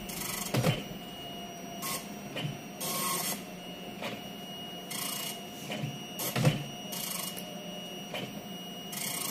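Epson PLQ-20 dot-matrix passbook printer printing on a passbook page. Short buzzing bursts come as the print head passes along each line, about every one to two seconds, with a few dull clunks between them.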